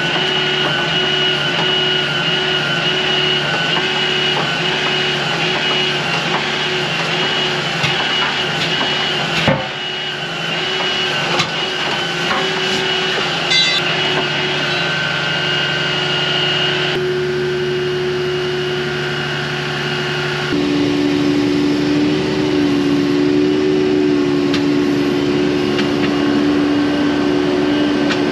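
Service truck's engine running steadily to work its tire crane, a constant hum with a steady whine over it that shifts pitch twice in the second half. A few sharp metal knocks in the middle.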